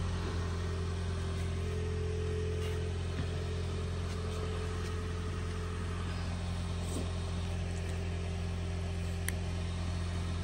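Car engine idling, a steady low even hum.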